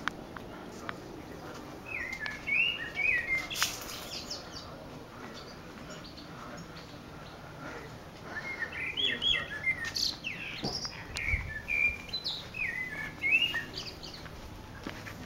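Small songbirds singing in quick chirping phrases, one run of song about two seconds in and a longer run from about the middle almost to the end.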